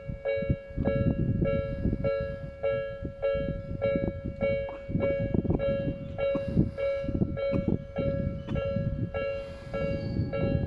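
Japanese railway level crossing alarm ringing its electronic two-tone 'kan-kan' at about three strokes a second, warning that a train is approaching. An irregular low rumble runs underneath.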